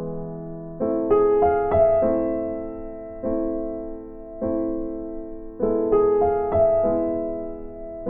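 Background music on electric piano: slow chords, each struck and left to fade, with a quick run of higher notes twice.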